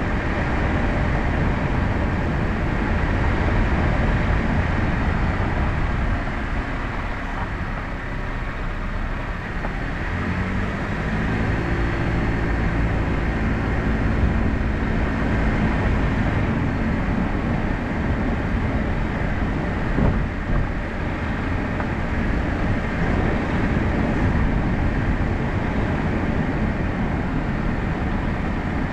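A car driving slowly over rough pavement: steady engine and tyre noise, with the engine's hum coming up more clearly for several seconds about a third of the way in. There is a single click about two-thirds of the way through.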